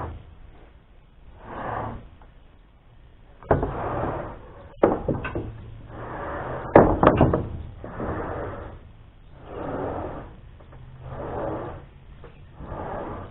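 Wooden boards being handled: several sharp knocks and clatters of lumber a few seconds in and around the middle, the loudest cluster just before the halfway point, over regular swells of rushing noise every second or two.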